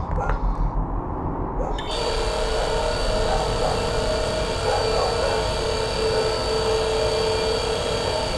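Film sound design: a low pulsing rumble that cuts over, about two seconds in, to a loud, dense droning noise with several steady whining tones held throughout.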